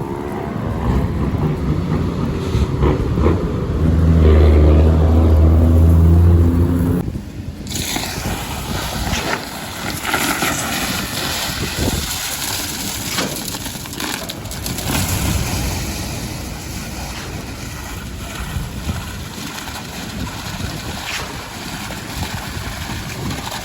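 A large engine running steadily, loudest a few seconds in, then cut off abruptly. It is followed by steady noise with scattered knocks and clatter.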